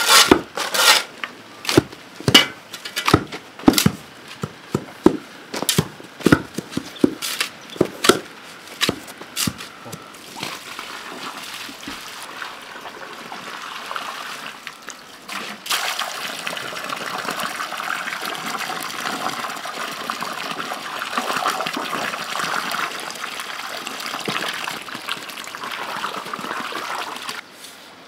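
Steel shovels scraping and striking a concrete floor in quick, irregular strokes while dry sand and cement are turned for mortar. Then water pours steadily from a watering can into a hollow in the mix, louder partway through, and cuts off sharply near the end.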